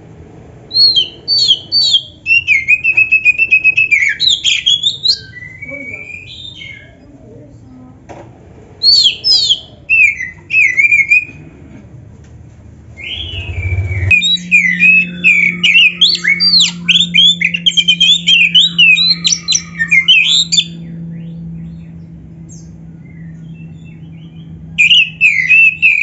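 Oriental magpie-robin (kacer) singing in loud bursts of fast, varied whistled phrases, a show-style song full of 'isian', fills of mimicked calls, with short pauses between bursts. A steady low hum sits under the second half.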